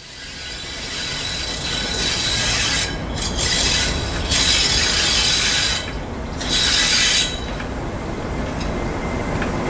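A train running on the rails with a steady rumble, broken by three bursts of high-pitched wheel squeal: about two seconds in, from about four to six seconds, and briefly near seven seconds.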